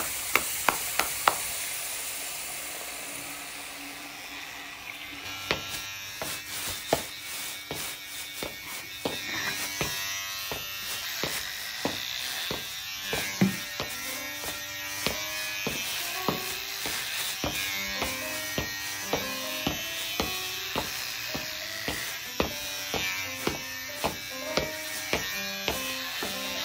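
Electric hair clippers buzzing, worked into a rhythmic sound piece: regular sharp clicks a little under a second apart, with short pitched tones stepping up and down like a tune. The first few seconds are mostly hiss before the rhythm sets in.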